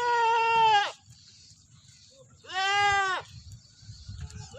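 Goats bleating in separate calls. A long bleat runs on until about a second in, a shorter one comes in the middle, and a third begins right at the end.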